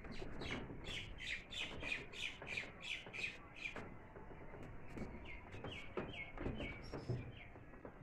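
A bird calling: a fast run of sharp, falling notes, about four a second, for the first four seconds, then a few shorter notes later on.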